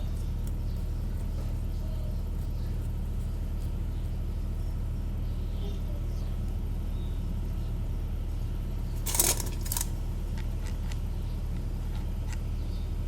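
Small metal alternator parts clinking as they are handled during reassembly: a short clatter about nine seconds in, a second just after, then a few light ticks. A steady low hum runs underneath.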